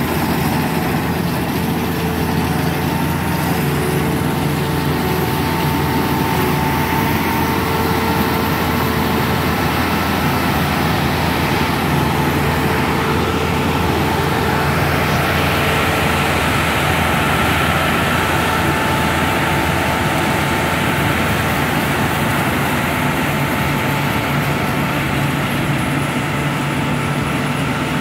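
Tracked rice combine harvester running steadily while cutting: the diesel engine and threshing machinery make a constant low note with a steady whine above it.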